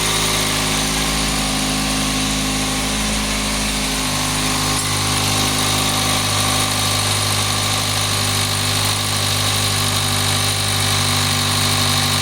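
Toyota 5E-FE 1.5-litre inline-four idling steadily, run with no head gasket fitted between block and head. A slight change in pitch comes about four seconds in.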